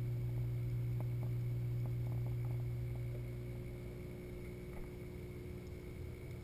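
Steady low hum of the aquarium's circulation pumps, heard through a camera submerged in the saltwater tank, with a few faint clicks in the first half. The hum gets somewhat quieter a little past halfway.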